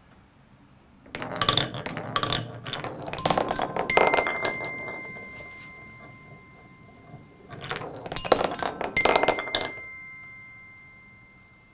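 Balls clattering down the wooden blocks of a Kugelbahn Chime marble run and rolling over its metallophone keys tuned to C, E, G and high C, which chime and ring on, fading slowly. It happens twice, the second run starting past the middle.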